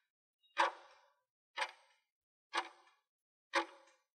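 Clock-tick sound effect for a countdown timer: four sharp ticks, one a second, each dying away quickly.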